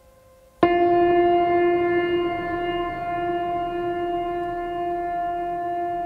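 Background music: a loud held note with several overtones comes in suddenly about half a second in and sustains, easing off slightly.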